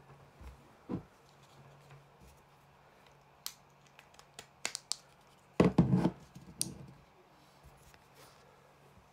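Hands handling a handheld CB radio and its programming cable: scattered small clicks and scrapes, with a louder short knock-like burst a little past the middle.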